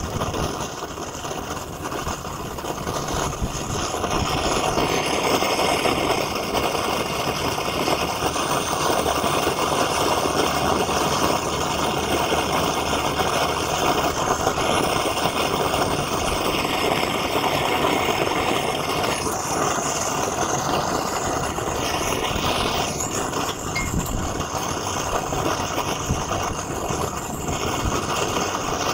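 Gas torch burner running with a steady rushing flame noise as it heats aluminium bars in a steel pan for melting, growing louder over the first few seconds and then holding steady.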